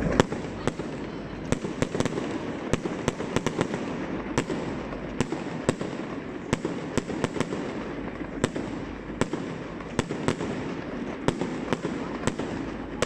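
Fireworks going off: an irregular run of sharp cracks and bangs, two or three a second, over a continuous background rumble and hiss.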